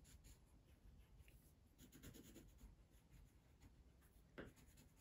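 Faint scratching of a brown coloured pencil rubbing back and forth on paper as it colours in, with one sharper tap about four and a half seconds in.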